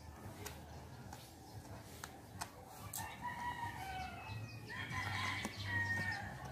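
A rooster crowing, a drawn-out call that starts about three seconds in and is loudest near the end, over a few light clicks from hands digging in the soil.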